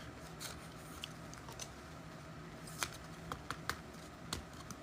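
Faint scattered clicks and light scraping of trading cards and card packs being handled and shuffled, a few sharper clicks bunched in the second half.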